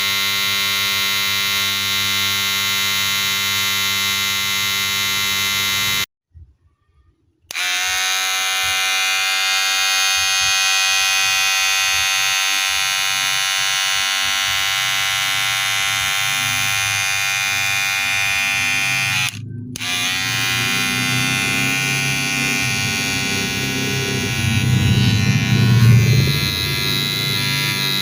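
Wahl cordless hair clipper running with a steady electric buzz. It cuts out about six seconds in and starts again a second and a half later, drops briefly about two-thirds of the way through, and the buzz grows louder and rougher near the end.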